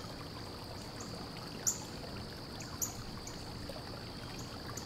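Light, sharp metallic clicks of a small bolt and K-nut being handled and fitted through a steel door hinge on a wire-mesh cage, a handful of them spread out, the clearest about two seconds in, over a steady faint hiss.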